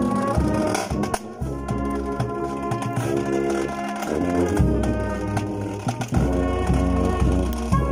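Brass band with marching bass drums playing a church tune: held brass chords over a deep bass line, punctuated by bass drum beats.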